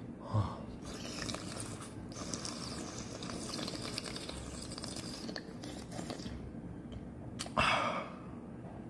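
A man breathing hard through his open mouth, with wet mouth and chewing noises, against the burn of extremely hot chili wings. One louder breath near the end.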